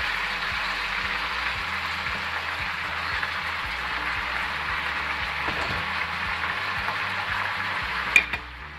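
Raw chunks of kid goat sizzling in hot oil in a frying pan, a steady frying hiss just after the meat has gone in over toasted garlic. Near the end there is a single sharp clink, and the sizzle dips for a moment.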